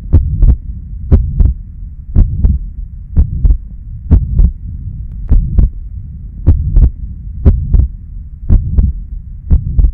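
Amplified recording of heart sounds with the murmur of tricuspid regurgitation. A sharp lub-dub pair comes about once a second over a continuous low rumbling murmur.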